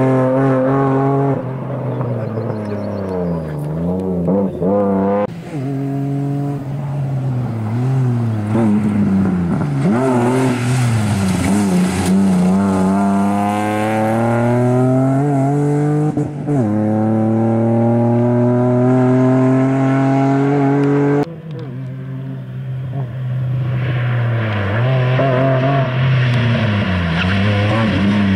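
BMW E36 saloon's engine revving hard, its pitch climbing and dropping back over and over as the car is driven hard around a tight course, with a hiss of tyres scrubbing at times. The sound breaks off abruptly a few times.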